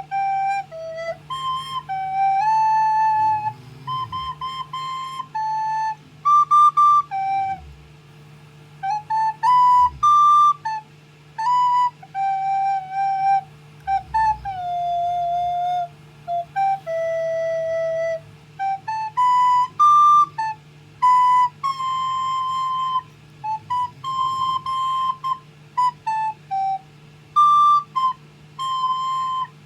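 Recorder played by a child: a simple melody of single notes, some short and some held, with brief breaks between phrases.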